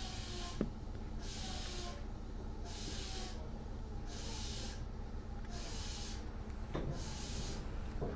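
Meitetsu 6000 series electric train heard from inside the passenger car while running between stations: a steady low rumble with a hiss that swells and fades about every second and a half, and a few sharp clicks near the end.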